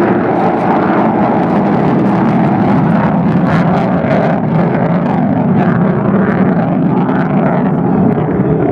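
B-1B Lancer bomber's four afterburning turbofan engines at full power during a low pass, giving loud, steady jet noise.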